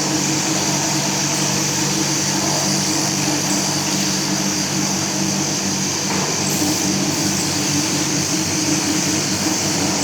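Steady factory machinery noise: a constant low hum of several tones with an even hiss over it, unchanging throughout.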